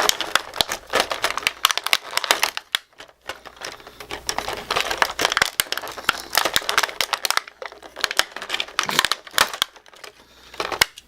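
Stiff plastic toy packaging crinkling and crackling in irregular spells as an action figure is worked out of its plastic tray by hand, with a few short pauses.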